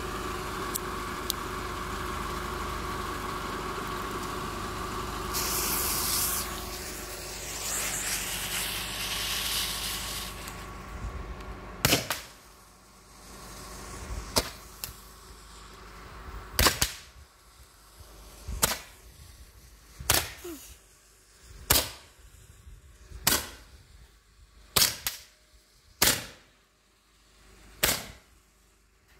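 Roman candle being lit and firing: the lit fuse hisses for about five seconds over a steady hum, then the candle shoots about ten sharp pops, one every second and a half to two seconds, each with a brief ringing tail.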